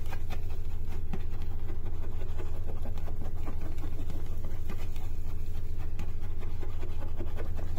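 Spatula scraping and pushing around the edges of an omelette in a frying pan, in small scratchy strokes over a steady low hum.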